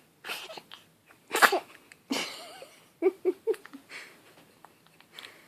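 Newborn baby sneezing: a quick breathy intake, then one sharp, loud sneeze about a second and a half in, followed by another breathy burst and a few short vocal sounds.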